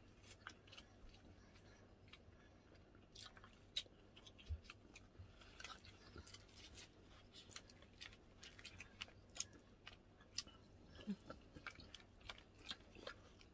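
Quiet close-up eating: irregular wet clicks and smacks of food being chewed, with a few sharper crunchy clicks.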